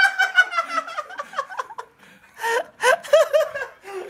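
Hearty laughter in repeated bursts, breaking off briefly about two seconds in, then a quick run of ha-ha-ha.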